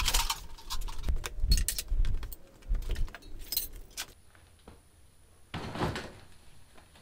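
Metal clinking and clanking as a heavy wrought iron post vise is handled on its brake-drum stand, with many quick knocks and rattles. After a quieter stretch, a single louder clunk near the end as the vise is tilted out of the drum.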